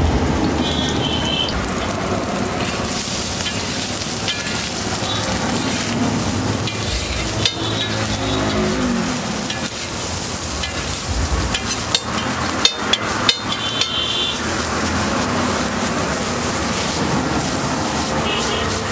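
Food sizzling on a large flat steel griddle while a metal spatula stirs and spreads it, scraping across the metal, with a run of sharp spatula taps on the griddle about two thirds of the way through.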